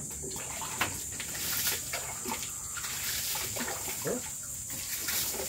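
Water splashing and dripping on a concrete floor and around a dog being bathed in its cage, with many small scattered knocks over a steady high hiss.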